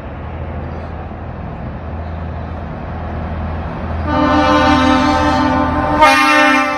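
Container truck's diesel engine running steadily, then about four seconds in its air horn blows a long two-note blast. The horn sounds again just after six seconds.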